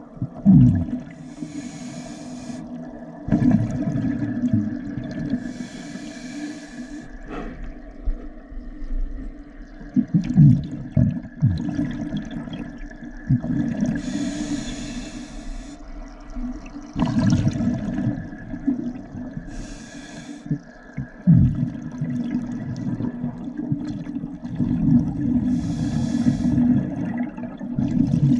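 Scuba regulator breathing underwater: about five hissing inhalations through the regulator, each followed by the low bubbling of exhaled air.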